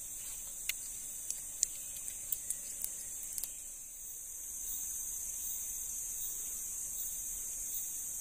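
Steady high-pitched drone of forest insects, with a scattering of small sharp clicks over the first three and a half seconds.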